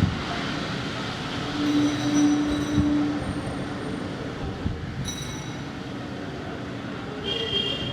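Busy street ambience: a steady wash of traffic noise, with a low horn held for about a second and a half starting about a second and a half in, and brief high-pitched ringing squeals scattered through.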